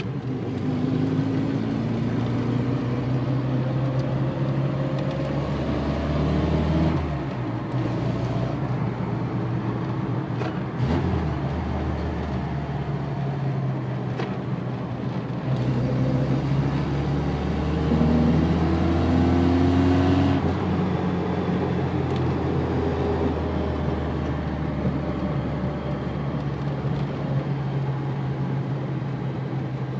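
Lada 2104's engine and road noise heard from inside the cabin while driving. The engine note climbs under acceleration twice and falls away suddenly, about seven seconds in and again about twenty seconds in.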